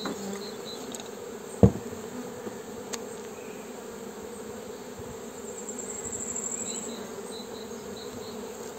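Honeybees humming steadily from an open, smoked hive, with a single sharp knock about a second and a half in.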